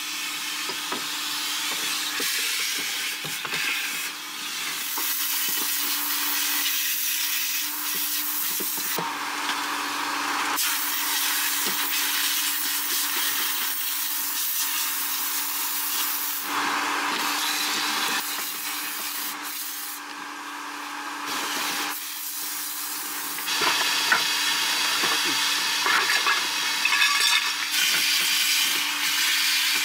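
Vacuum cleaner running, a steady motor hum under loud suction hiss that changes abruptly several times as the nozzle is worked over surfaces. There are a few sharp clicks near the end.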